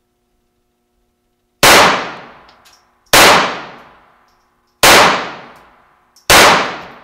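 Four pistol shots, about a second and a half apart, each echoing in the enclosed indoor range lane before dying away.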